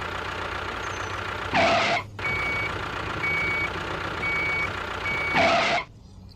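Truck reversing alarm beeping four times, about once a second, over a steady engine and road noise. A short loud hiss comes just before the beeps and another right after them, and the whole sound cuts off about six seconds in.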